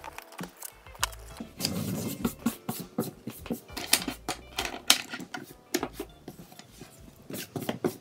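A notebook being handled on a desk: an irregular run of clicks and knocks with paper rustling, densest about two to five seconds in, as the journal is picked up and moved.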